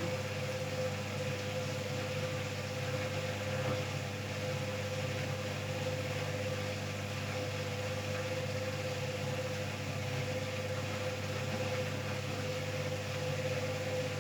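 Hoover washing machine running its wool and silk programme: a steady motor hum with a constant whine, unchanging throughout.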